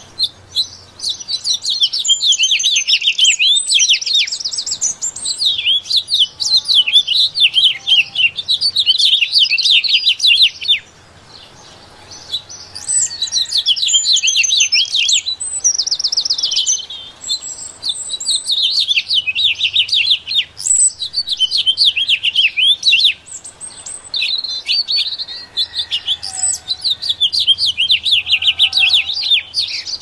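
Bird song: rapid, high twittering chirps and trills, almost without a break, pausing briefly about eleven seconds in.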